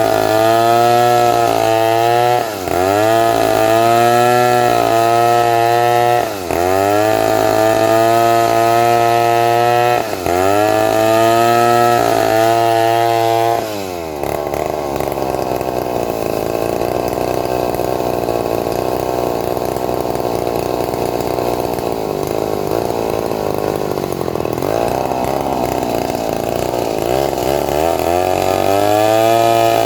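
Two-stroke chainsaw sawing through a large teak log. For the first half its engine note dips and climbs back roughly every four seconds as the chain loads and frees in the cut. From about halfway it turns into a rougher, steadier sound without a clear pitch, and near the end the pitched engine note returns.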